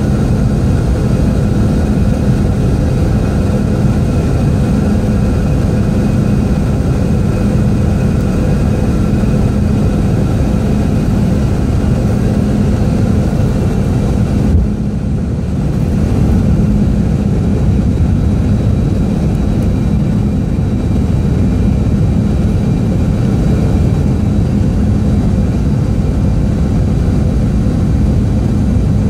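Cabin noise inside a Boeing 717-200 on approach with flaps extended: a steady roar of airflow and the rear-mounted Rolls-Royce BR715 turbofans, with a low hum and a few steady tones through it. The noise dips briefly about halfway through, then carries on as before.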